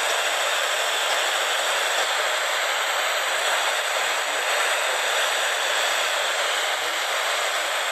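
Steady radio static: an even hiss with no tones or voice, holding one level throughout.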